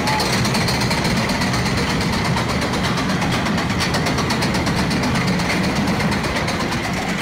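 Pinfari looping roller coaster train being hauled up its chain lift hill: the lift chain clatters in a fast, even stream of clicks over a steady low hum.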